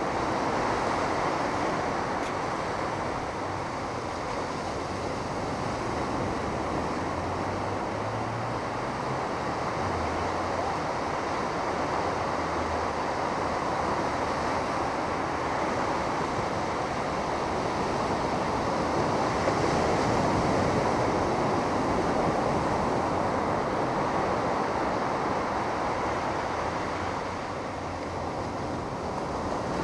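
Ocean surf washing continuously onto the beach, swelling and easing slowly, with wind buffeting the microphone.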